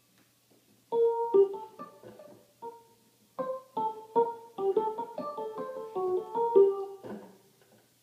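Digital keyboard played a note at a time in an uneven melody on one of its preset voices, starting about a second in and stopping about a second before the end.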